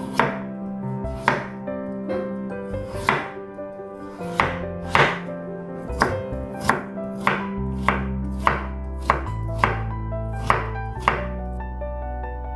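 Chef's knife slicing a raw potato into thin strips on a wooden cutting board: a sharp knock of the blade hitting the board roughly every half second to second, stopping shortly before the end. Soft background music with held notes runs underneath.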